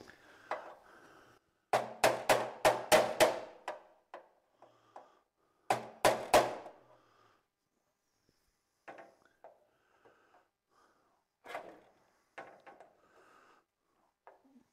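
Hammer blows on a steel breaker box: a quick run of about six strikes, then two more a few seconds later, the sheet metal ringing after each. It is the kind of hammering used to punch knockouts out of the box. Near the end there are a few light clicks and taps.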